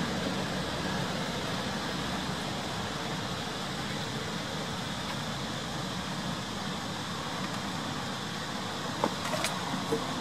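Steady outdoor background noise, with a few sharp taps about nine seconds in as a young macaque clambers onto a plastic basket.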